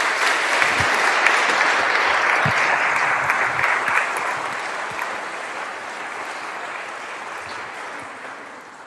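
Audience applauding, loudest for the first few seconds and then gradually dying away.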